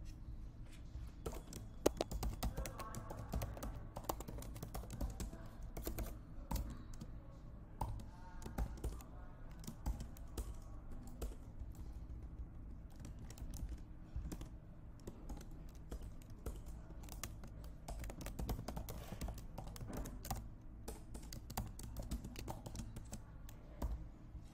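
Typing on a computer keyboard: a steady run of irregular key clicks.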